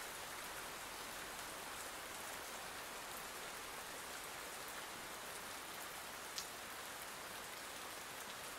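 Steady light rain falling, a soft even hiss, with one faint tick a little over six seconds in.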